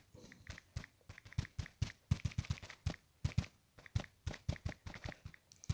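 Quick, irregular taps of fingertips typing on a smartphone's touchscreen keyboard, several a second.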